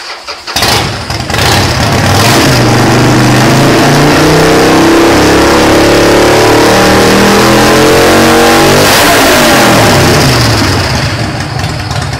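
Harley-Davidson Sportster Forty-Eight's fuel-injected V-twin, tuned with a Fuelpak 3, starting up about half a second in and running with the engine speed rising steadily for several seconds. About nine seconds in the revs drop away and it settles back to idle, the idle the tune is being checked for.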